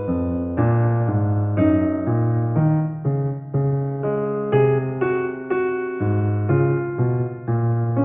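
Background piano music: a gentle keyboard tune over a bass line, with a new note or chord about every half second.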